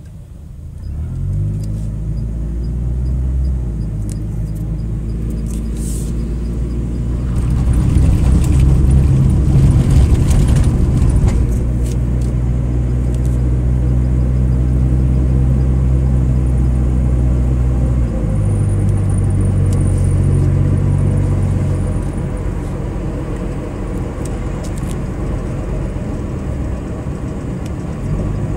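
The 2.0-litre SOHC four-cylinder engine of a 2003 Mitsubishi Lancer ES driving the car: it picks up about a second in, then holds a fairly steady pull with road noise. It rises in pitch past the middle and settles back down a few seconds later. The engine has a logged cylinder 2 misfire.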